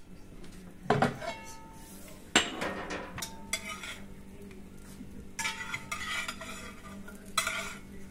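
Large steel pan scraping and clanking as it is drawn out of a brick stove's oven with a long-handled pan holder, then a fork scraping flatbreads off the pan. There are sharp metal clanks with a brief ring about a second in, about two and a half seconds in, and near the end, over a steady low hum.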